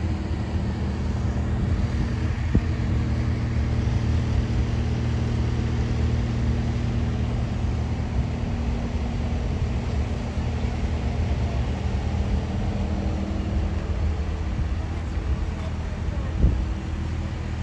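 Heavy truck's diesel engine idling: a steady low hum with several layered tones, and a single short click about two and a half seconds in.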